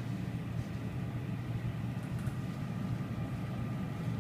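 Steady low hum of laboratory ventilation, a fume hood's extraction fan running. A faint light tick about two seconds in.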